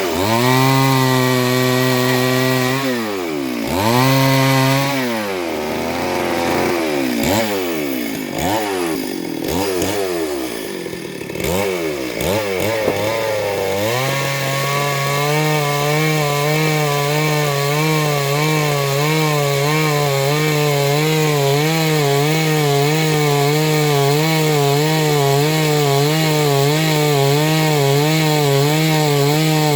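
Two-stroke chainsaw engine revved up and down several times, then held at high speed from about halfway with a slight regular waver in pitch as it cuts through wood.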